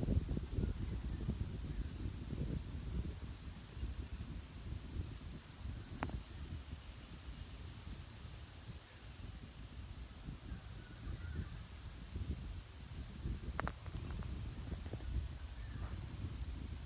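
Steady high-pitched insect chorus, with an uneven low rumble underneath.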